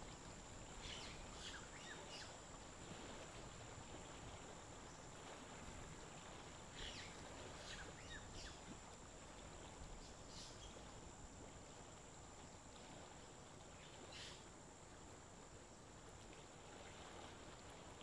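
Near-silent outdoor background with a faint, steady high-pitched whine and a few faint short chirps scattered through.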